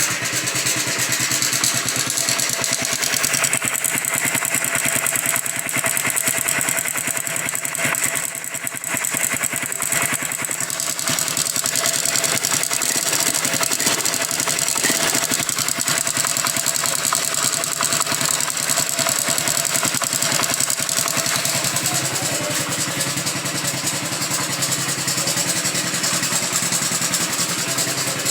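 Honda Biz 100's single-cylinder four-stroke engine running with a fast metallic rattle from its cam chain. It is the sign of a worn, slack cam chain, which the mechanic puts at 90% likely before opening the engine and finding the chain loose.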